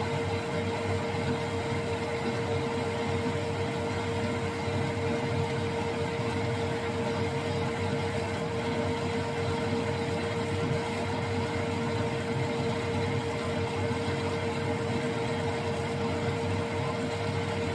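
Metal lathe running under power feed, the tool taking a steady skim cut along the workpiece: an even motor hum with a constant whine.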